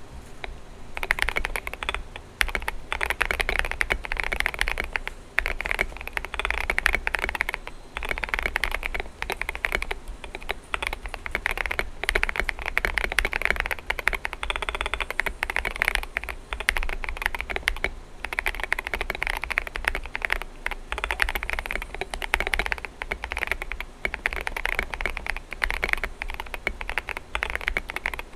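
Fast, continuous typing on a GMMK Pro mechanical keyboard with lubed Boba U4T tactile switches and SA-profile keycaps. Keystrokes start about a second in and run as a steady stream with a few short pauses. PE foam laid on the PCB gives the board a poppy, thocky sound rather than a muted one.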